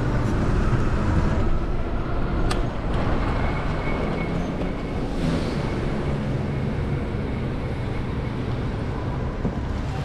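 Steady city street traffic noise with a low rumble, heard from a bicycle riding through the streets, and a single sharp click about two and a half seconds in.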